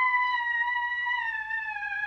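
Horror suspense sound effect: a single eerie, theremin-like high tone, held and slowly sliding down in pitch, growing gradually quieter.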